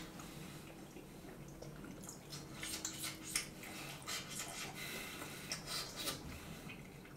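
Faint scattered clicks, smacks and chewing of people eating pasta, over a faint steady hum.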